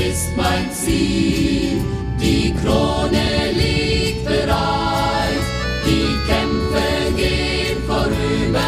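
Background music: a German Christian song, with voices singing in a choir over instrumental backing.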